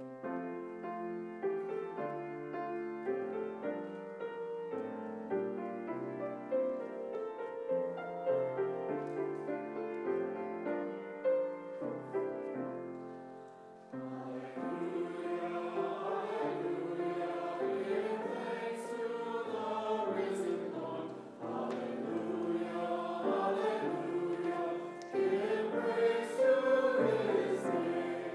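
Church choir with piano accompaniment: a piano introduction, then the choir comes in singing about halfway through.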